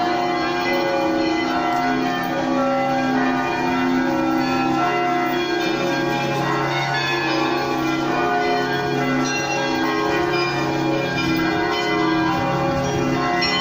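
Russian church bells ringing a continuous peal, many bells sounding at once with their tones overlapping and sustained, without a pause.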